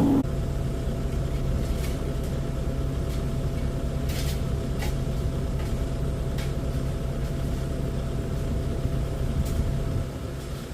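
Volvo EW65 wheeled excavator's diesel engine running steadily with a low drone and a thin steady whine above it, plus a few faint clicks.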